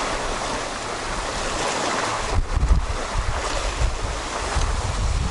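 Waves washing against a rocky shore, with wind buffeting the microphone in low gusts from about two seconds in.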